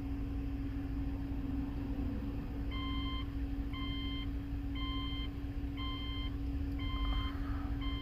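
A 3.0-litre six-cylinder boxer engine idling with a steady low rumble and hum; from about a third of the way in, an electronic chime beeps evenly, about once a second.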